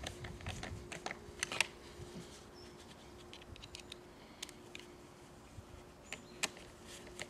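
Light clicks and taps of plastic and metal parts being handled as a chainsaw's throttle cable is refitted by hand: a cluster of clicks in the first two seconds, one sharper click about a second and a half in, and another near the end, over a faint steady hum.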